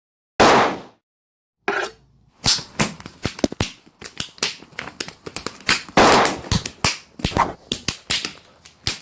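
Cartoon sound effects: a noisy swish that fades out, a moment of silence, then a fast, irregular flurry of sharp hits, slaps and short swishes, like a slapstick scuffle.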